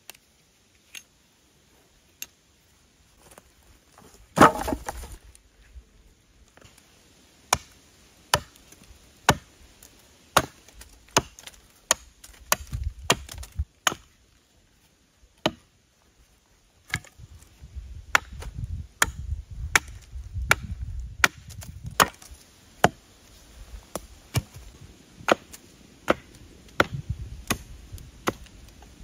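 Wood being chopped with a blade: sharp, single strikes into wood, scattered at first and coming about one to two a second in the second half, with a longer cracking sound about four seconds in.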